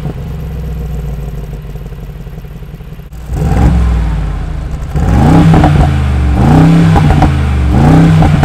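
Mercedes-AMG G63's 4.0-litre twin-turbo V8 heard at its side-exit exhaust pipes: idling steadily, then from about three seconds in revved in a series of short blips, each rising and falling in pitch.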